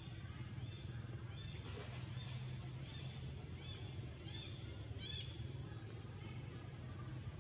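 A string of short, high chirping animal calls, about two a second, that stops about five seconds in, the last call the loudest, over a steady low hum.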